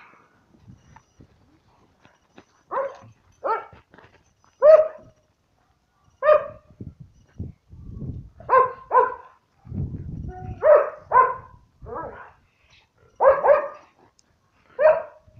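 American Staffordshire terrier barking repeatedly: about a dozen short barks, some in quick pairs, spaced a second or so apart.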